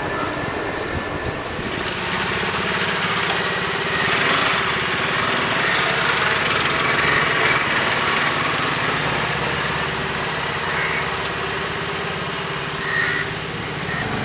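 A small engine running steadily at idle, over general outdoor traffic noise.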